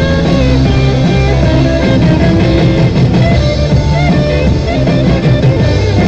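Rock song with guitar playing on the car radio inside the cabin.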